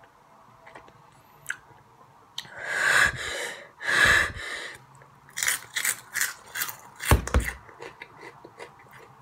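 Two long, hissing breaths through an open mouth, as from the burn of the spicy snack, then a quick run of crunches as a hot Cheeto is bitten and chewed, with one dull thump among them.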